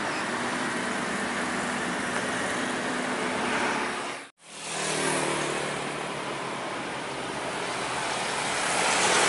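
Heavy road traffic: an intercity bus's engine running with road noise as it drives past. The sound cuts out abruptly about four seconds in. Then another heavy vehicle's engine comes in and grows louder near the end.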